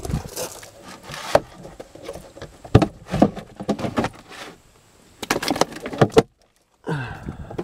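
Hands rummaging through gear on a van floor: plastic lids, cups and a small cooler clacking and knocking, with some rustling, in a string of short irregular bursts, broken by a brief silence near the end.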